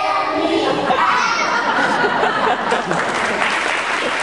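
A group of young children singing the last words of a song together, followed by audience laughter and chatter, with clapping starting about three seconds in.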